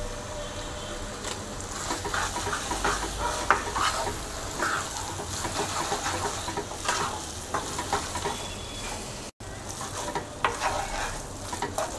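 Wooden spatula stirring and tossing noodles in a nonstick wok, with repeated scrapes and knocks against the pan over a low sizzle of frying.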